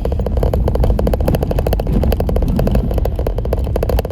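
Jeep Wrangler JL crawling over rough trail: a low engine and driveline rumble with rapid, continuous rattling and knocking as the vehicle jolts over the ground.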